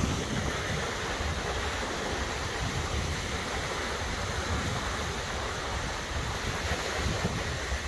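Surf washing onto a sandy beach in a steady rush, with wind buffeting the microphone in a low rumble.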